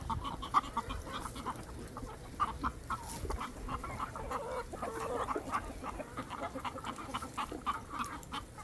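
A flock of chickens clucking, many short clucks overlapping.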